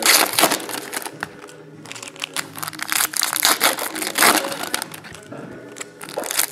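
Foil trading-card pack wrappers crinkling as they are torn open and handled, in repeated spells with short pauses between.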